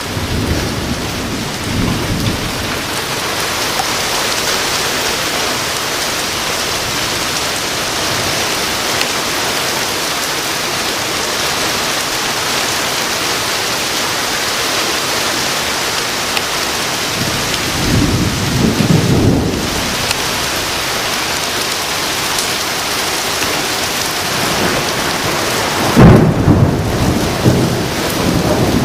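Severe thunderstorm: heavy rain falling steadily, with thunder rumbling three times: faintly about two seconds in, louder around two-thirds through, and loudest near the end, where it breaks in sharply and rolls on.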